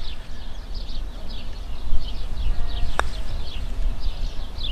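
A single sharp click of a putter striking a golf ball about three seconds in, over birds twittering and a low wind rumble on the microphone.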